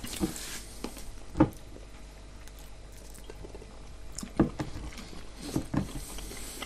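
Chewing and biting into crunchy pide flatbread, heard as a few short crunches and clicks, the loudest about one and a half seconds in and again around four and a half seconds in.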